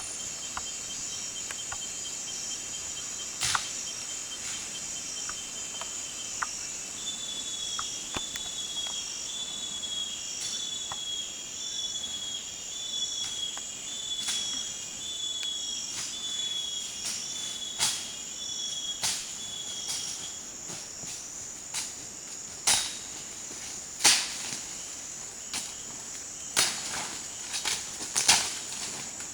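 Amazon rainforest insects keeping up a steady high-pitched drone, with short calls repeating in a regular rhythm and, from about 7 to 20 seconds in, a second falling call repeating a little faster. In the last third, several loud sharp clicks cut in.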